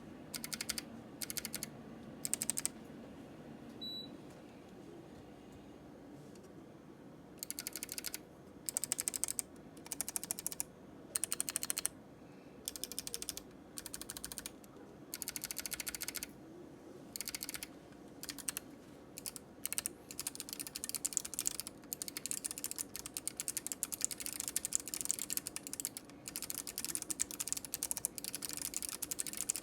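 Typing on a POK3R LE mechanical keyboard fitted with lubed Kailh Box Navy clicky switches and lubed stabilizers, foam-dampened inside the case: short bursts of crisp keystroke clicks, a pause of a few seconds near the start, then fast, nearly continuous typing through the second half.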